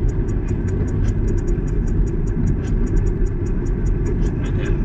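Holden Commodore's LS3 V8 running steadily while the car is driven, a dense, even low rumble with a fast, regular high ticking over it.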